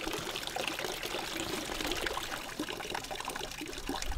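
Water running and splashing steadily, a continuous trickling, pouring rush.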